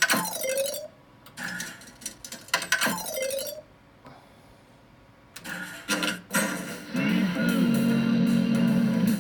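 Electric guitar through an amplifier: a few separate strummed chords with gaps between them, the first two each followed by a short falling tone, then a chord held and ringing from about seven seconds in.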